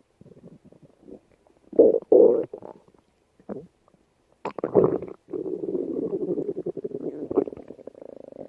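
Human stomach growling: a run of short, irregular gurgles, a loud gurgle near the middle, then one long rumble lasting about three seconds.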